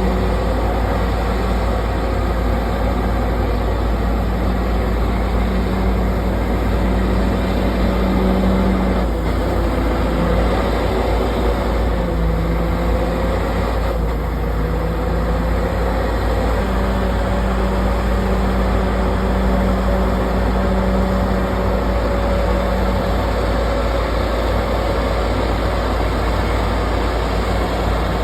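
Komatsu D68ESS bulldozer's diesel engine running steadily with a heavy low rumble, its pitch sagging briefly about a third of the way in and again near the middle as the engine takes load, then recovering.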